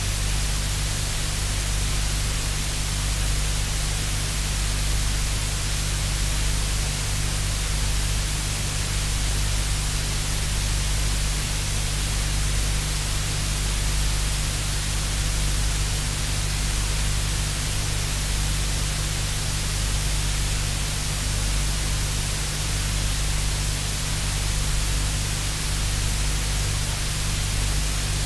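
Steady static hiss with a low hum underneath, unchanging throughout, with no distinct sounds standing out.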